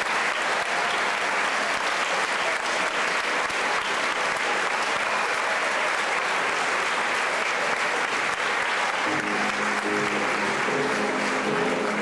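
Audience applauding steadily. About nine seconds in, an instrument starts playing short notes under the clapping.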